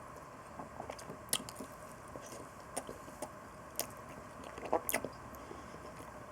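A person chewing food close to the microphone, with scattered short mouth clicks.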